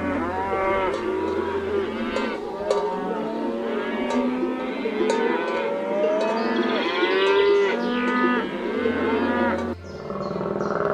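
Several cattle mooing at once, with many overlapping calls that rise and fall in pitch. They cut off abruptly about a second before the end.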